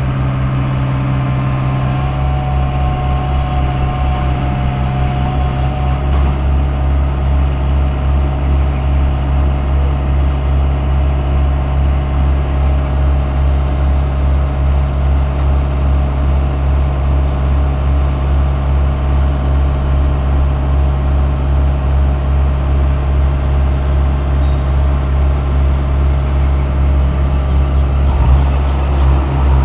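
Diesel engines of a tracked mini excavator and a Bobcat tracked loader running steadily at work, a continuous low hum. A thin high whine comes in about two seconds in and lasts a few seconds.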